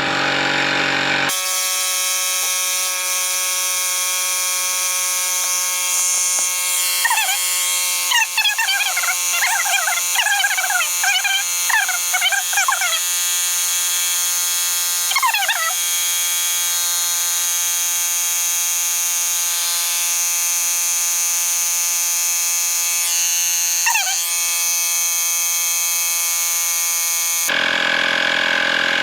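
Fanttik X8 cordless tire inflator running as it pumps up a flat motorcycle tire, played back sped up so its motor and pump become a steady high-pitched buzzing drone. Short chirping squiggles come through several times in the middle.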